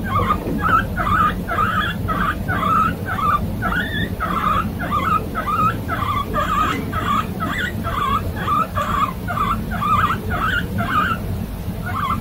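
A guinea pig wheeking: a steady run of short, high squealing calls, about two or three a second. This is the guinea pig's call for food, here begging for peas.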